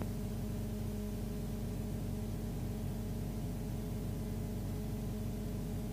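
Motorglider's piston engine and propeller droning steadily at cruise power, a constant low hum with no change in pitch, as the aircraft picks up speed in level flight.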